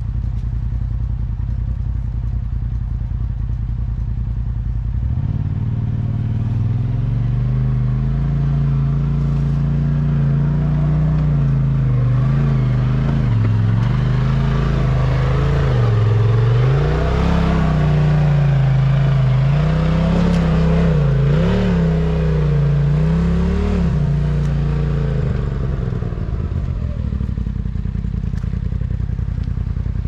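Polaris Pro XP side-by-side's engine running low and steady, then pulling harder from about five seconds in, its note rising and falling with the throttle for about twenty seconds, before dropping back to a low steady run near the end.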